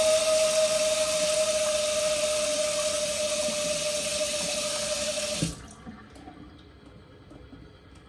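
Newly fitted water tap running full into a sink, with a steady whistle over the rush of water. It is shut off abruptly about five and a half seconds in.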